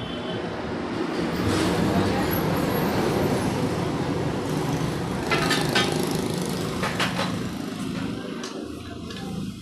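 Hero Splendor Plus single-cylinder engine running, swelling in level over the first couple of seconds and easing toward the end, with a few sharp clicks or rattles a little past halfway.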